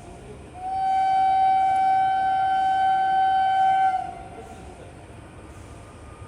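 Indian Railways WAP-4 electric locomotive's horn sounding one long, steady blast of about three and a half seconds, then cutting off and leaving the low rumble of the train.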